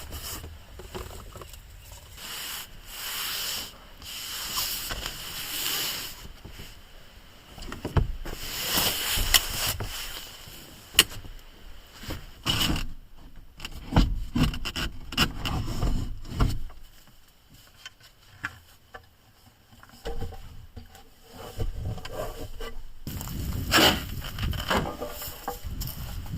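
Irregular rubbing, scraping and rustling with scattered knocks and clicks, as camping gear is handled and moved about inside a small van while it is being set up for the night.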